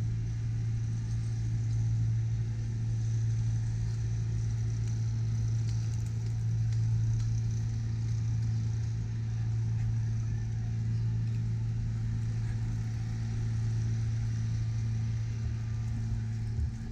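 A steady low mechanical hum, even in pitch and level.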